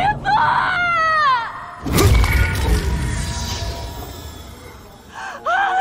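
A woman's anguished cry of "Master", one long wail falling in pitch. About two seconds in comes a sudden deep boom that slowly dies away, and near the end a second short cry.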